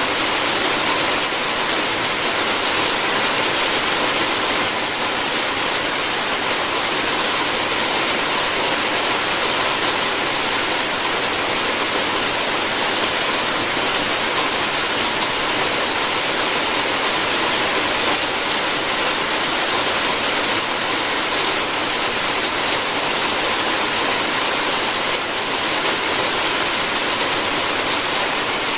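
Rain falling steadily on a roof: an even, unbroken hiss that neither swells nor pauses.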